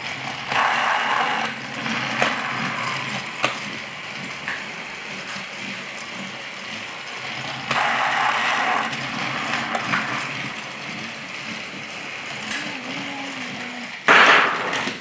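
Plastic toy vehicles and track pieces being handled, clicking and rattling with a gear-like ratcheting, with a few sharp clicks and a short louder burst near the end.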